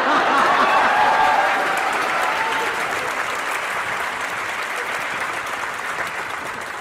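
Studio audience applauding and laughing, loudest at the start and slowly dying away.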